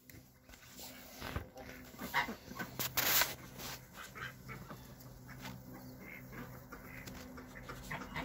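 A puppy whimpering in short bursts, over a steady low hum.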